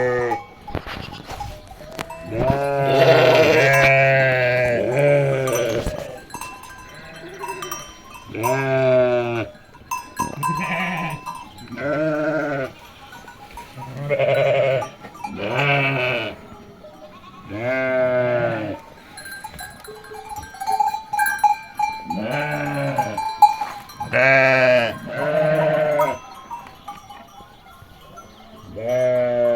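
A flock of sheep bleating over and over, about a dozen separate calls, each about a second long and some overlapping, with a livestock bell ringing now and then between the bleats.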